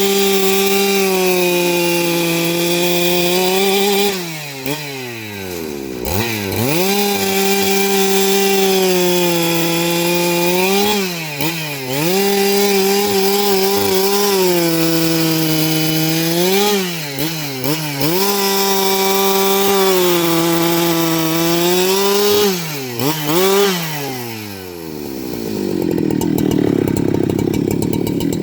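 Husqvarna 395XP two-stroke chainsaw running at high revs while sawing wood into boards. Its pitch sags and climbs back about four times as the cut loads and eases off. Near the end the engine drops away to a lower, rougher sound.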